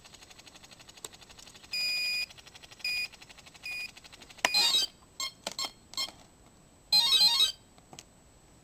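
Electronic beeps from the model's brushless motor speed controllers as they power up and arm: a faint rapid ticking, then one long beep and two short ones, then two quick runs of changing tones with a few clicks between them.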